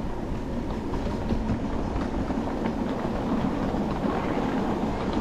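Steady rumble and clicking of a 7½-inch gauge ride-on train's cars rolling along the track.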